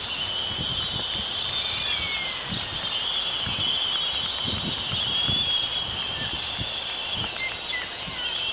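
Chorus of seabird calls from an albatross colony: many high, wavering calls overlapping without a break.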